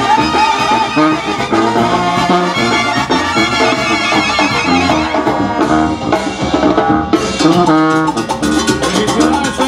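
Loud Latin brass-band music with trumpets and drums, playing steadily.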